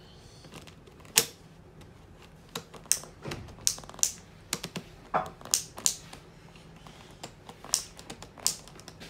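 Plastic ratchet straps and buckles of a kids' snowboard binding clicking and clattering as small hands work them: irregular sharp clicks and knocks, the loudest about a second in.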